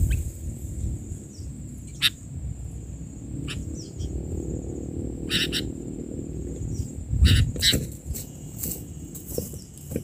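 Insects buzzing steadily at a high pitch, broken by a handful of short rustling flutters from a sooty-headed bulbul stuck on a lime-glue trap stick and flapping against the dry cut vegetation.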